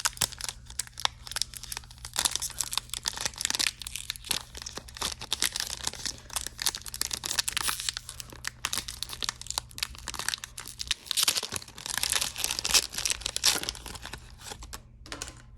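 A trading-card pack wrapper being torn open and crinkled by hand, a dense run of crackles that thins out near the end, over a steady low hum.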